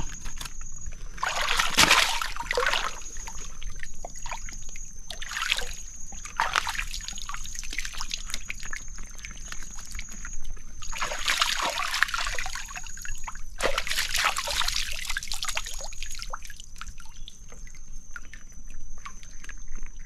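Shallow tidal water sloshing and splashing in irregular bursts every few seconds as a man wades and handles a large mud crab at the pool's edge. A thin, steady high-pitched tone comes and goes in the background.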